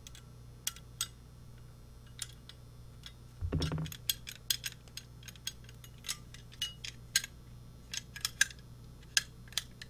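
Small metallic clicks and taps of a hand tool working the adjustment screws of a Sugatsune HES3D-E190DC concealed hinge as they are loosened. The clicks are scattered and come thicker in the second half, with a dull handling knock about three and a half seconds in.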